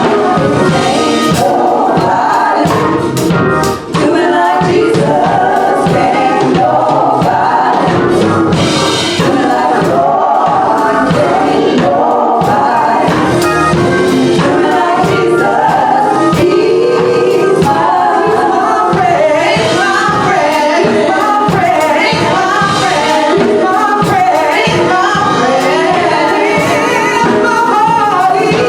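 Gospel choir singing over instrumental accompaniment with a steady beat.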